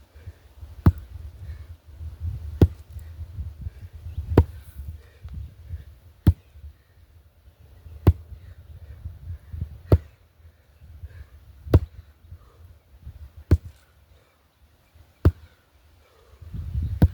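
Sledgehammer striking in a steady training rhythm: nine sharp, single hits, one about every two seconds, with a low rumble between them.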